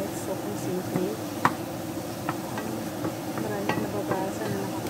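Chicken and chopped red onion frying in a stainless-steel pan while a wooden spoon stirs them. The spoon gives irregular taps and scrapes against the pan, the sharpest about a second and a half in, over a steady sizzle.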